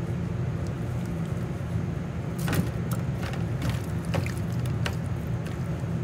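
Steady low mechanical hum of kitchen equipment, with a few short clicks and knocks as raw chicken pieces are handled and skewered over a stainless steel pan.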